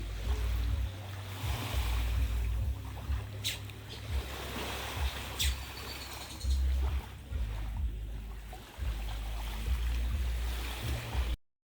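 Wind buffeting the microphone at the seashore over a haze of ocean surf, with two sharp clicks a few seconds in.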